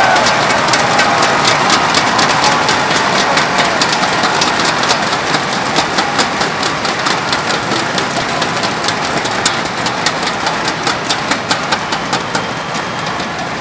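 Large arena crowd cheering while banging inflatable thundersticks together. A dense clatter of claps rides over a steady roar of voices, and in the second half the clatter falls into a more even rhythmic beat.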